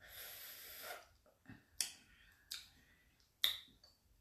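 A breath, then crisp crunches of chewing raw green mango: three sharp loud ones roughly a second apart, with fainter mouth clicks between.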